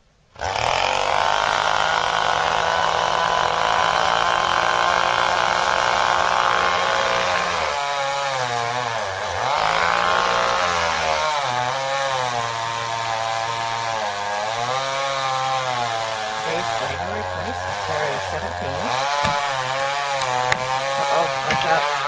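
Small chainsaw running at high revs while cutting into a tree trunk. It comes in suddenly just under half a second in and holds a steady pitch for about seven seconds. After that its pitch rises and falls again and again as the saw works through the cut.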